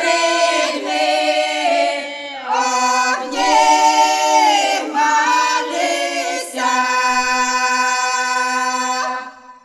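Choral singing, apparently unaccompanied, in sustained notes that change every second or so, ending on a long held chord that fades out near the end.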